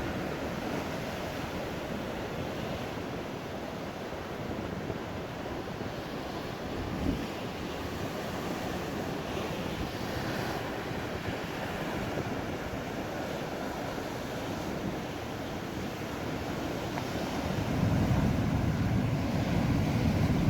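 Rough sea surf breaking and washing in a steady roar, with wind buffeting the microphone. The low rumble swells louder for the last few seconds.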